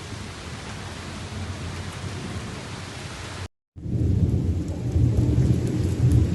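Rain falling as an even hiss during a thunderstorm; after a short cut about three and a half seconds in, a loud low rumble of thunder rolls on under the rain.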